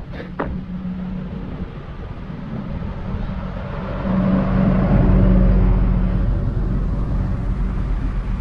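Bus passing on the road alongside, its engine drone growing louder to a peak about four to six seconds in, then fading as it goes by.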